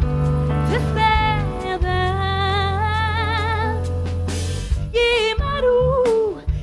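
Live pop performance: a female vocalist holds long notes with vibrato over a band of keyboard, electric guitar, bass guitar and drums.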